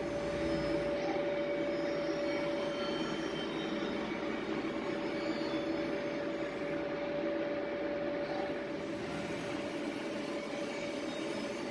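Yenar YF 60210 roll fluting machine running with a steady whine over an even mechanical noise.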